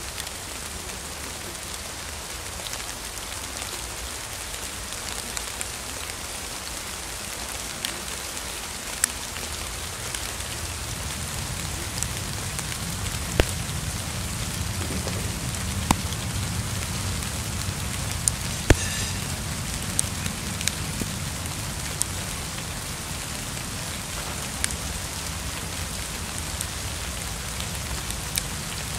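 Steady rain falling on lilac leaves and blossoms, with scattered louder drops ticking close by. A low rumble grows in underneath about a third of the way through.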